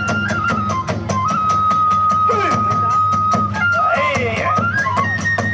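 Kagura hayashi accompaniment: a bamboo transverse flute holds long notes that step up and down in pitch, over a fast, even beat of drum and hand cymbals.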